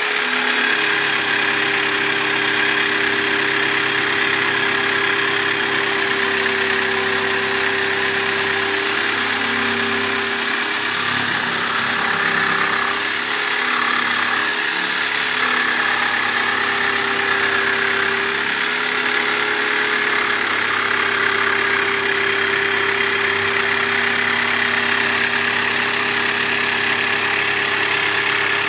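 Corded jigsaw running steadily, its reciprocating blade cutting along a curved line through a wooden board, with a steady motor whine that dips slightly in pitch now and then as the blade loads up.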